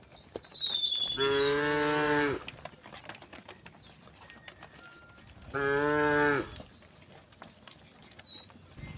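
Cows mooing: two long moos, the first about a second in and the second past the middle. A high falling whistle-like call comes at the start, and a few faint high chirps come near the end.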